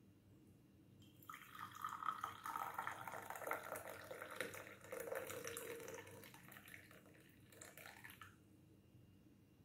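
Liquid poured in a thin stream into a ceramic teacup, splashing and trickling as the cup fills. The pour starts about a second in and stops near the end.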